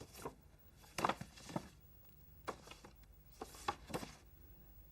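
Faint, scattered knocks and clicks over quiet room tone, about half a dozen spread irregularly through the few seconds.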